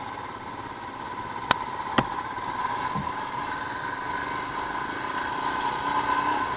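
Motorcycle engine running steadily while riding a dirt trail, with two sharp knocks about a second and a half and two seconds in.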